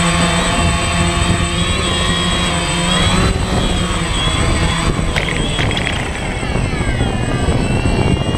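DJI Phantom quadcopter's motors and propellers buzzing loudly while it hovers low, the pitch of the whine wavering and then sliding downward in the second half as it descends toward the ground.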